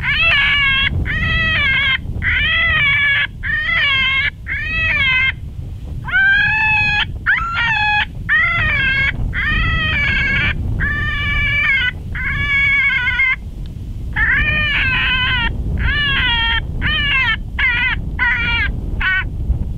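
Predator call blowing a coyote-hunting distress sound: a long series of wavering, high-pitched cries, each under a second, repeated in runs with short breaks.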